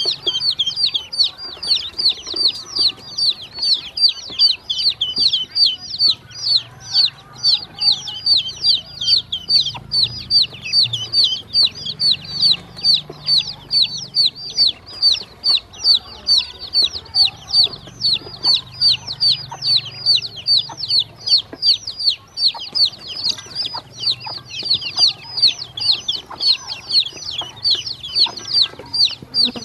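Baby chicks and ducklings peeping incessantly: a rapid, high-pitched run of short falling peeps, several a second, with faint taps underneath.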